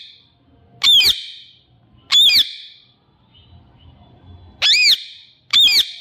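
Indian ringneck parakeet giving four short, harsh squawks, each arching up and down in pitch: two in the first half, then two close together near the end. The owner reads the bird's calls as sulky, cross squawking.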